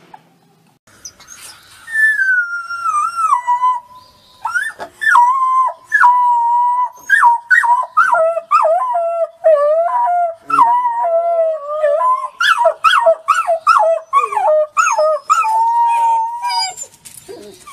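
Wolf pups howling: long, wavering howls, often two voices at once, one higher than the other, breaking off and starting again in short pieces. The first howl begins about two seconds in and slides down in pitch.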